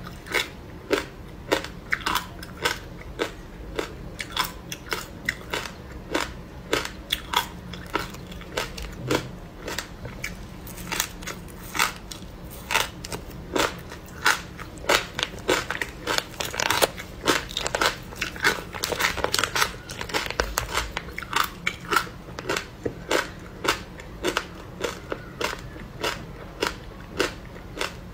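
Ice frozen with passion fruit pulp and seeds being bitten and chewed: a run of sharp crunches, about two or three a second, busiest in the middle.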